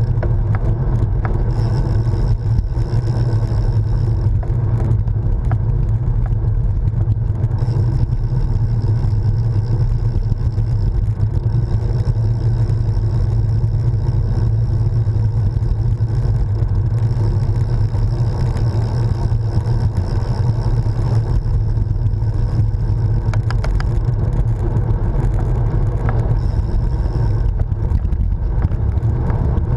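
Steady wind buffeting and tyre rumble on tarmac, picked up by an action camera on the handlebars of a moving road bicycle, with a faint high whine that comes and goes.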